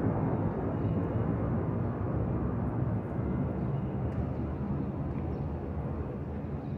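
Twin-engine jet airliner climbing out overhead: a steady, deep jet-engine rumble that fades slowly as the plane draws away.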